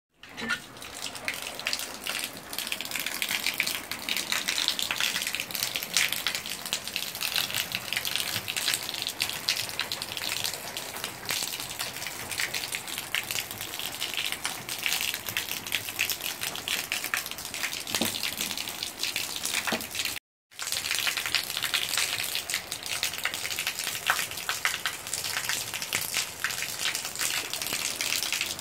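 Rain falling steadily at night, a dense hiss of drops pattering and splashing on hard surfaces. The sound cuts out for a moment about twenty seconds in.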